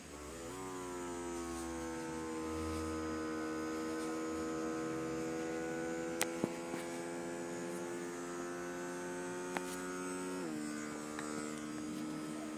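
Small air pump in the control unit of a pneumatic hand-rehabilitation glove running with a steady hum, inflating the glove's ribbed finger actuators so the fingers curl into a fist. About ten seconds in its pitch drops suddenly and it runs on lower. A few sharp clicks are heard around the middle.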